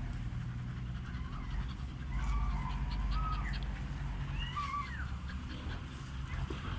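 Young tabby cat meowing about three times, short rising-and-falling mews between two and five seconds in, over a low steady rumble.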